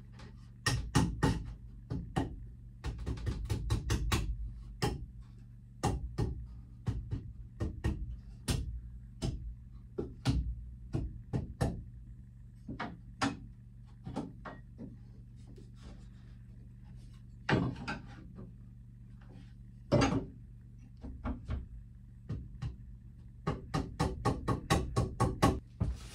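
Knocks and taps of wood on wood as stair treads and blocks are fitted and tapped into place between plywood stringers, ending in a quick run of about three or four taps a second. A steady low hum runs underneath.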